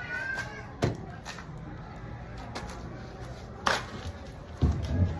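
Sharp knocks and taps from wood and tools being handled during cabinet building. The knocks come a second or so apart, with a couple of heavier, duller thumps near the end.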